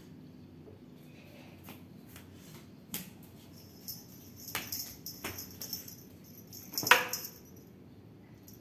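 Scattered light knocks and taps over a low steady background, with one louder, sharper knock about seven seconds in.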